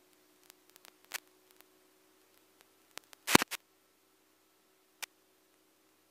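Muffled clicks and knocks picked up by a camera mounted outside the cabin of a light aircraft in flight, over a faint steady hum. A sharp click comes about a second in, the loudest knock about three seconds in, and another click near the end.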